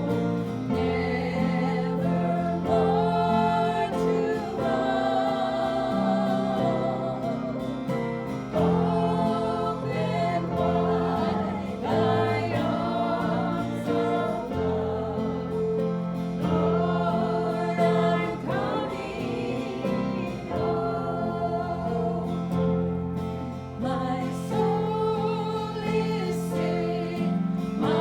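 Gospel song sung by a group of voices in harmony, continuous throughout with held notes.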